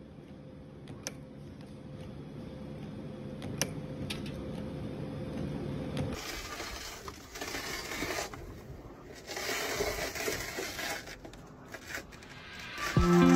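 Wire-forming machine running with a steady low hum and a few sharp clicks as it bends and cuts steel wire into rings. About halfway through the sound changes abruptly to a harsher scraping and crackling in irregular bursts, and guitar music comes in just before the end.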